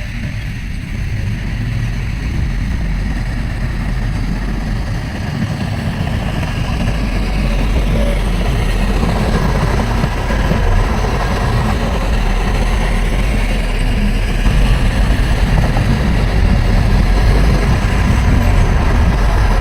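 Diesel engine of heavy earthmoving machinery running steadily with a deep, low rumble, gradually getting louder.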